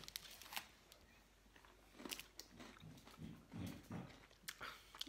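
Quiet chewing of chocolate close to the microphone: scattered soft crunches and mouth clicks, a little busier between about two and four seconds in.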